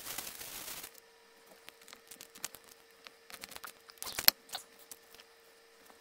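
A plastic bag rustling and crinkling for about a second, then small clicks from hands handling copper ring terminals and wire. There is a sharp louder click about four seconds in, over a faint steady hum.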